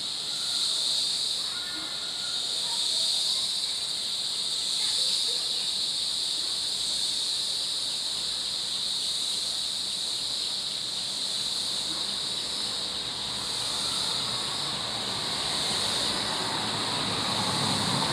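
A loud, steady chorus of cicadas buzzing in the forest, one high pitch held throughout and swelling and easing slightly in slow waves.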